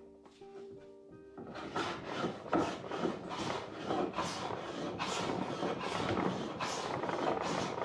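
Hand-sanding a wooden door: rhythmic back-and-forth rasping strokes, about two a second, starting a little over a second in.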